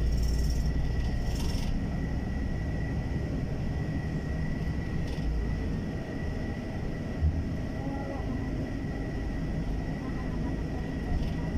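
Steady engine and road rumble of an airport shuttle bus driving, heard from inside the cabin, with a thin steady high tone throughout. Two short hisses come in the first two seconds, and there is a single thump about seven seconds in.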